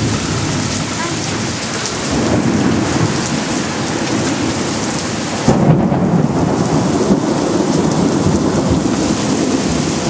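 Heavy downpour pouring steadily in a thunderstorm. About halfway through, a deep rumble of thunder comes in suddenly and rolls on for several seconds.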